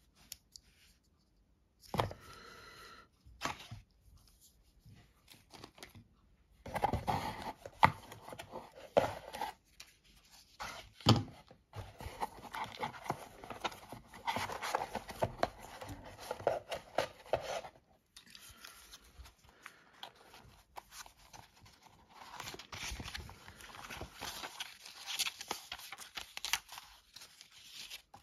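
Hands handling paper and cardboard packaging: irregular rustling and crinkling with a few sharp knocks, then the pages of a paper manual being leafed through near the end.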